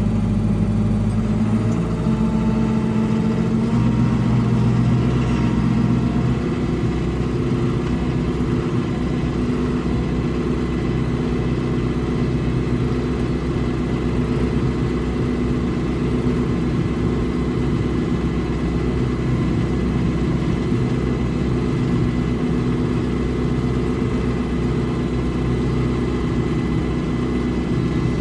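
Vehicle engine running steadily at low speed, with a faint steady whine above it; the engine note drops a little about six seconds in.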